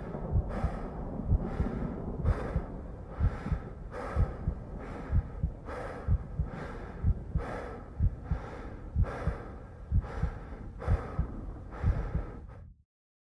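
A man's laboured, gasping breathing over slow, regular heartbeat thumps, about one stroke a second, which cut off suddenly near the end.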